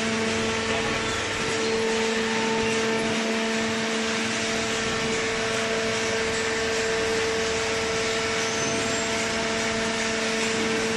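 Hydraulic paper baler's electric motor and hydraulic pump running steadily with a constant hum.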